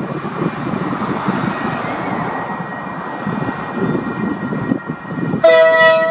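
Diesel locomotive engine running as it approaches, then its horn sounds a loud, sudden blast of several tones together near the end.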